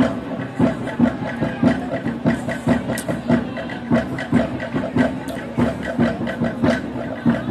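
Maengket dance music: the dancers singing a held, chant-like song together over an even drum beat of about three strokes every two seconds.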